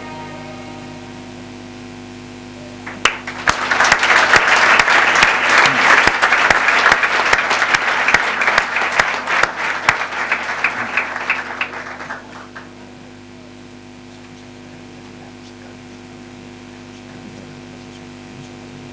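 Audience applauding in a hall, breaking out about three seconds in and dying away after about nine seconds, just after the last note of a string orchestra fades. A steady low hum remains underneath.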